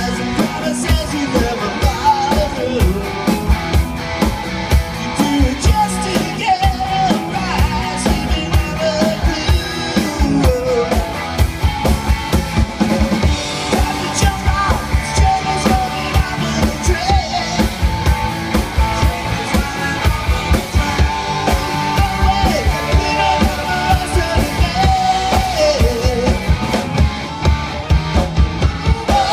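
Live rock band playing a song: a lead vocal over a steadily beating drum kit, electric guitars, bass and an acoustic guitar.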